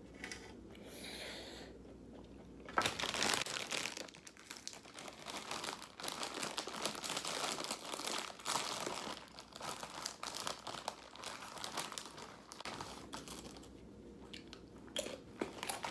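Crinkling of a crisp plastic Fritos chip bag being handled and rummaged through, with a sharp crackle about three seconds in; the rustling dies down after about thirteen seconds.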